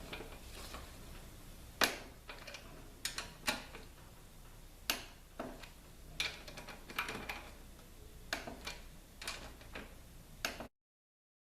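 Hand tools working on a motorcycle's front wheel: about ten sharp metallic clicks and taps at uneven intervals, roughly one a second, stopping abruptly near the end.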